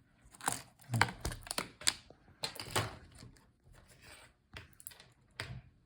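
Irregular plastic and metal clicks and knocks from a laptop motherboard being lifted out of its chassis and handled, with a few sharper taps and some rustling in between.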